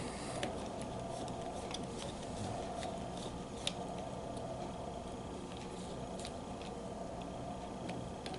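Faint, scattered small metallic clicks and ticks as screws are turned into the cover plate of a Proto 1/2-inch ratchet head, one click a little louder about three and a half seconds in, over a steady low hum.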